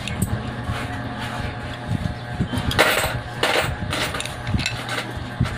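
Close-up eating sounds: cooked scallops picked from their shells by hand and chewed, with short clicks and smacking and two brief louder noisy bursts about three seconds in, over a steady low hum.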